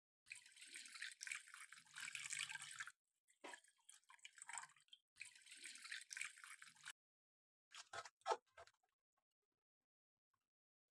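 Water poured into a hot wok of fried chicken masala, pouring and splashing in three stretches over the first seven seconds. A few sharp clicks follow about eight seconds in.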